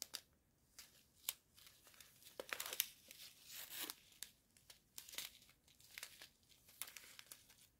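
Faint crinkling of thin plastic as a strip of sealed diamond-painting drill bags is handled, with scattered small sharp crackles.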